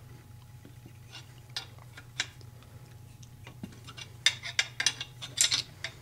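Wrenches clicking and clinking against a bolt and steel rod coupling nut as the bolt is turned to force an ATV ball joint out of its spindle: a few scattered clicks, then a quick flurry of them about four seconds in.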